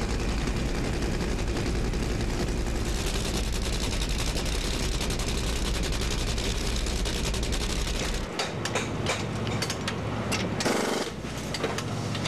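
Nitromethane-burning supercharged V8 Funny Car engines running at full throttle, a dense, rapid crackling roar. About eight seconds in the deep part of the sound cuts out suddenly as the engines are shut off, leaving scattered pops and crackles.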